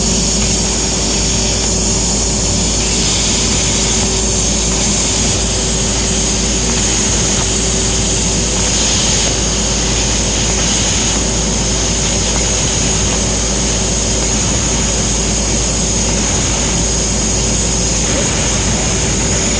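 EKS Laser ESF-3015GT 1 kW CNC fiber laser cutting machine running while cutting thin stainless steel: a loud, steady blowing noise with a constant high whine and a low hum. From about eight seconds in, short bursts of higher hiss come every second or two.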